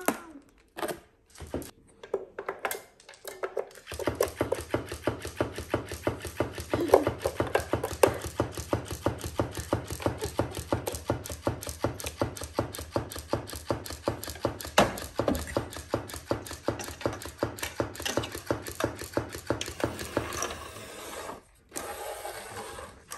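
A small motorised mechanism running with a low hum and a fast, even clicking, several clicks a second. It starts about four seconds in after a few separate clicks and stops near the end.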